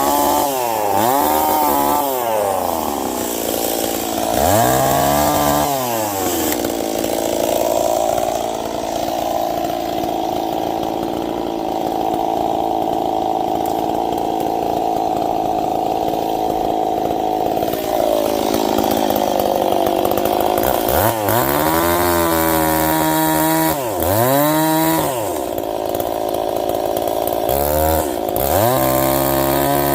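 Ported Stihl 026 two-stroke chainsaw, revved up and back down several times, then held at steady full throttle for about ten seconds, then revved up and down repeatedly again near the end.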